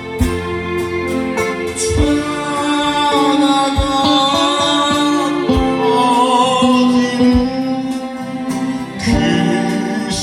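A song sung with instrumental accompaniment including guitar, with a low beat falling about every two seconds.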